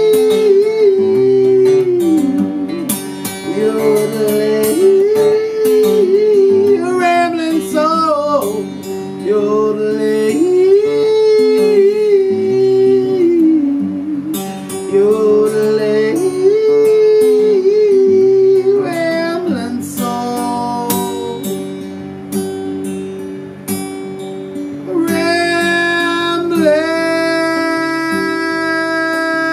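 Acoustic guitar strummed under a man singing a wordless, yodel-style melody that slides and leaps in pitch, ending on a long held note.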